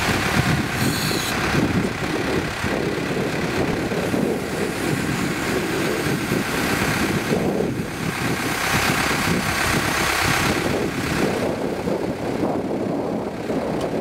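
Self-propelled grape harvester running steadily, with a tractor's engine alongside, as the harvester's raised grape hopper is lowered after tipping its load into the trailer.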